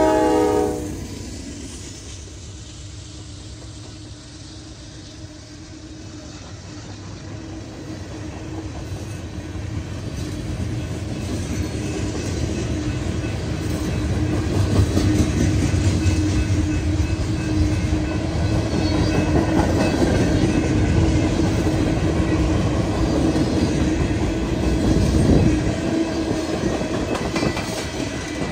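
Freight locomotive air horn cutting off about a second in, then a long freight train's cars rolling past on steel rails: a steady rumble and clickety-clack of wheels that grows louder, with a steady hum underneath.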